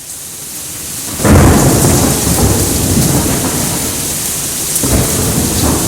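Thunder rumbling over steady rain: a loud clap about a second in that rolls on as a deep rumble, with a second swell of rumble near the end.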